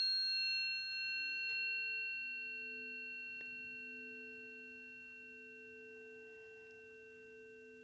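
Two planetary tuning forks, tuned to Venus and Juno, ring together after being struck: two steady low tones with fainter high overtones, fading slowly.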